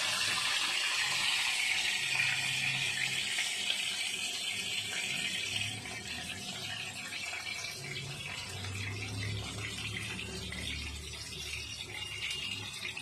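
Hot oil sizzling steadily as battered Bombay duck pieces deep-fry in a kadai, easing a little after about six seconds.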